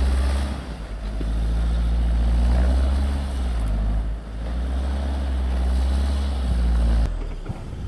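UAZ Patriot SUV's engine pulling hard under load as it churns through deep snow, with its wheels spinning and throwing snow. The engine note dips briefly about half a second in and again around four seconds in, then drops abruptly near the end.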